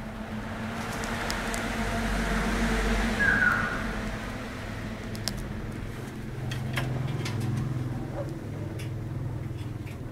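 A passing vehicle's low engine rumble that swells over the first three seconds and then fades, with scattered light clicks later on.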